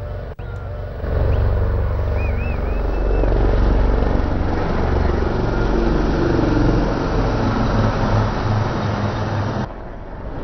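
HAL Dhruv helicopters of the Sarang display team flying overhead: a loud, steady noise of rotors and turbine engines, heaviest at the low end. It comes in about a second in and cuts off suddenly near the end.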